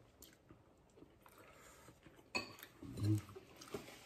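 Quiet eating sounds: a metal spoon clinking and scraping in a ceramic bowl of arroz caldo, starting a little over halfway in, with a short hummed 'mm' from the eater just after.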